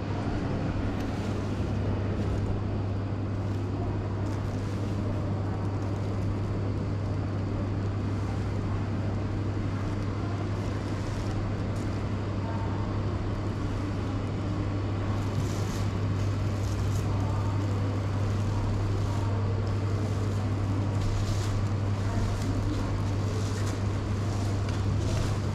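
A steady low hum over a faint, even background noise, with no clear change throughout.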